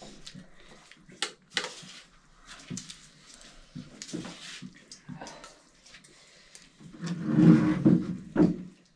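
Scattered small clicks and knocks of dishes being handled while people eat a meal, with a louder jumble of sound about seven to eight seconds in.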